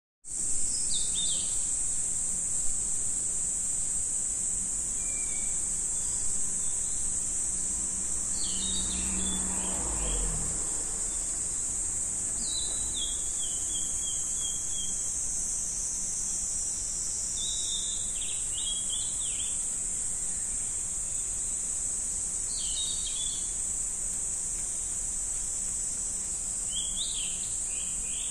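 Steady high-pitched insect chorus, with a bird giving short chirping phrases every four or five seconds. A low rumble swells and fades about ten seconds in.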